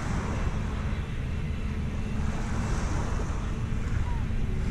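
Wind rumbling on the microphone, a steady low buffeting, with small waves washing on the shingle shore.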